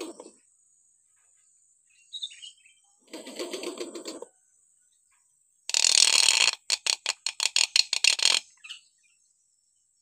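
Hill myna calling: a short note, a harsh rasping call, then a loud harsh screech about six seconds in, followed straight away by a fast series of sharp clicks, about seven a second.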